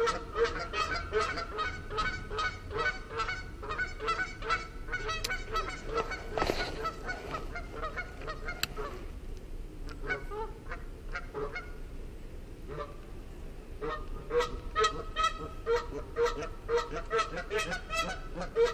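Geese honking, a fast run of short repeated calls that thins out for a few seconds about halfway through and then picks up again.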